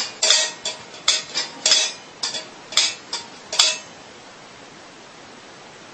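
A cat's stainless steel food bowl clinking and rattling in its metal stand as the cat eats from it. It makes a quick, uneven run of metallic clinks with a short ring, about three a second, which stops a little past halfway.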